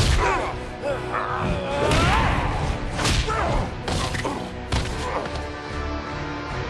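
Cartoon fight sound effects: a punch landing right at the start, then several more heavy impacts and crashes, with grunts and shouts of effort, over a dramatic music score.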